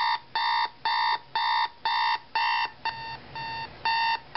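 General Electric 7-4624B digital clock radio's alarm going off: steady electronic beeps, about two a second. A couple of beeps come quieter about three seconds in, then it beeps at full loudness again.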